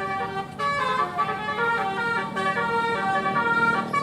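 Indonesian bus 'telolet' horn, a set of multi-tone air horns playing a quick tune of stepped notes that follow one another almost without a break.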